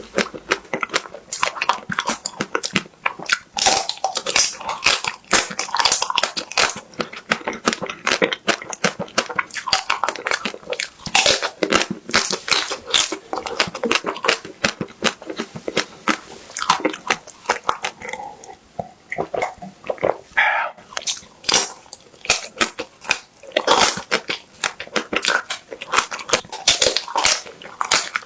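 Close-miked biting and chewing of a crispy-shelled ice cream bar: dense, crisp crunching and crackling as the coating breaks, with a short lull in the crunching a little after the middle.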